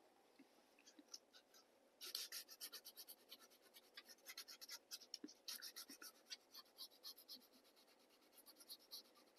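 Faint hand-sanding of a carved wooden rose with a fine 600-grit pad: quick scratchy rubbing strokes that start about two seconds in, pause briefly, then pick up again near the end.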